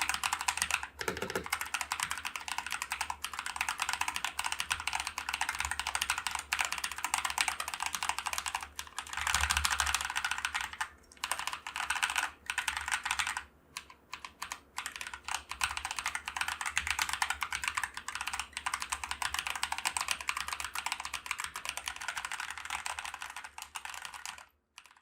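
Continuous typing on a Glorious GMMK TKL mechanical keyboard fitted with Akko CS Lavender Purple tactile switches, a dense run of key clicks broken by a few short pauses and stopping just before the end.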